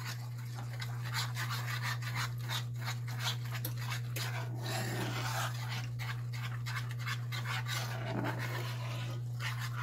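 A spoon scraping and rubbing around a skillet in quick, continuous strokes as a flour-and-milk sauce is stirred while milk is poured in, over a steady low hum.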